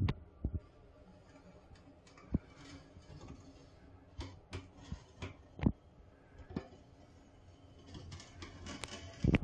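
Hand caulking gun clicking now and then as its trigger is squeezed and the plunger rod advances, pushing silicone sealant along a wall joint, with faint rubbing in between. A louder pair of clicks comes near the end.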